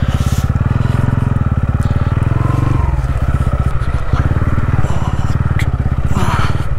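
TVS Ronin 225's single-cylinder engine running steadily, its evenly spaced exhaust pulses heard one by one.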